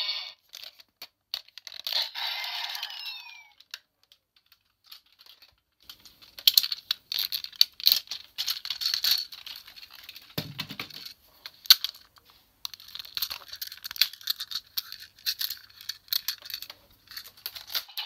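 Hard plastic toy parts of a DX Siren Pat Kaiser combining robot clicking, snapping and rattling as the vehicles are pulled apart and fitted together, in many quick irregular clicks. About two seconds in, a short electronic sound from the toy's speaker.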